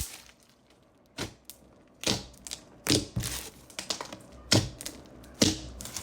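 Slime being handled, making sharp clicking and popping sounds, about six at irregular intervals.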